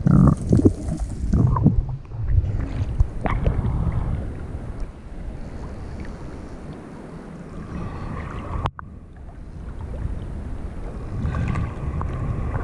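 Seawater sloshing and splashing against a waterproof action camera at the waterline, with a muffled low rumble; the surges are heaviest in the first few seconds as the camera comes up from under water, and the sound cuts out briefly for an instant about nine seconds in.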